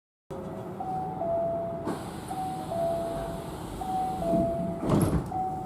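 Train door chime sounding a two-note high–low tone, a short higher note then a longer lower one, repeating about every second and a half over the train's background noise. Two dull knocks come through about two and five seconds in.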